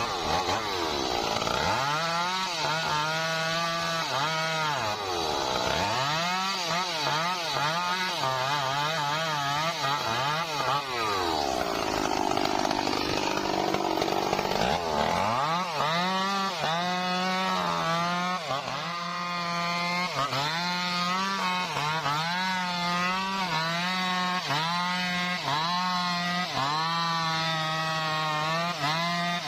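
Stihl MS 382 two-stroke chainsaw cutting through trembesi (rain tree) wood, its engine pitch sagging under load and recovering again and again. Around the middle it bogs down deeply for a few seconds, and in the second half it rises and falls about once a second as the saw is worked through the cut.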